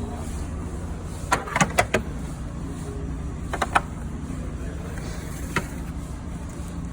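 Steady low drone of a ferry's engines, with a few sharp clicks and clinks: a quick cluster about a second and a half in, two more near the middle and one near the end.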